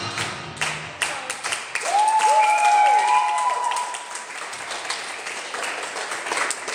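A small group clapping and applauding, with a couple of high cheering cries that rise and fall about two seconds in; the clapping thins out in the second half.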